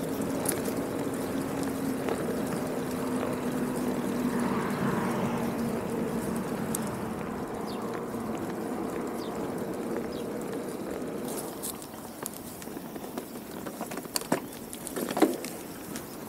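Bicycle riding along a paved path: steady tyre and wind noise, with a low hum that fades away over the first half, and a few clicks and a short clatter near the end.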